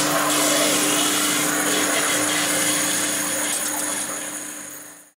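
Intro sound effect of a running machine: a loud, steady hiss over a constant hum, fading out over the last second and stopping.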